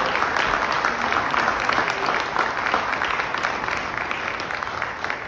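Audience applauding, a steady patter of many hands clapping that eases slightly near the end.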